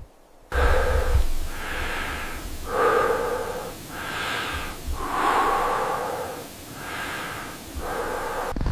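Heavy, rapid breathing: quick in-and-out breaths, roughly one a second, starting about half a second in.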